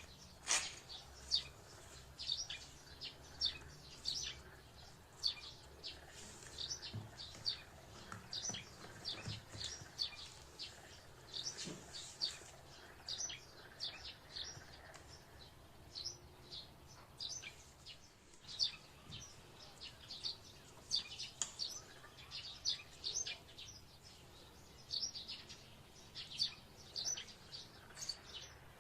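A small bird chirping over and over, with short high chirps coming irregularly a couple of times a second.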